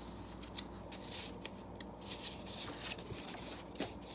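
Faint paper rustling and light crackles as a picture book's page is handled and turned, with a few small ticks.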